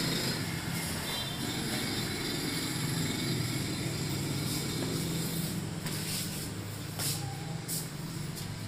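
Marinated chicken frying in oil in a pressure cooker pot, sizzling steadily over a low hum. A few short clicks come near the end.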